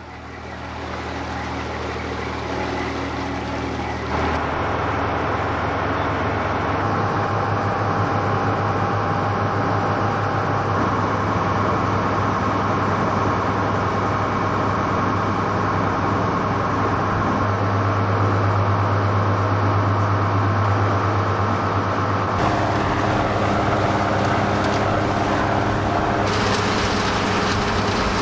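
A cockle boat's engine running steadily under load, a constant low hum with water rushing and churning around the hull. The sound fades in at the start and changes character abruptly a few times, about four, twenty-two and twenty-six seconds in.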